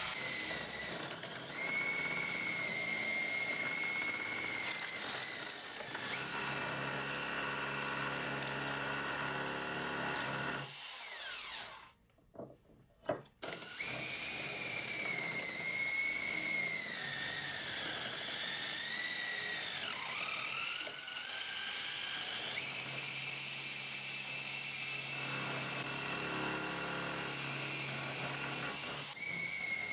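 A spruce strip twisted by hand between the serrated jaws of an Irwin bench vise, the wood scraping and squealing as the teeth shave it round into a dowel. The squeal wavers in pitch, and the sound stops briefly about twelve seconds in.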